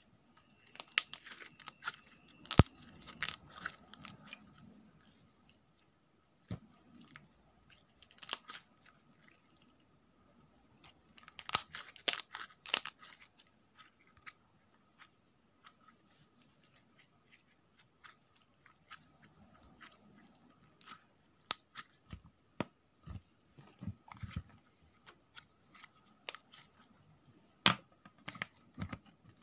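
Pink slime being stretched, squished and pressed on a tabletop by hand, giving sticky pops and crackling clicks in scattered clusters, loudest about two to four seconds in and again around twelve seconds in.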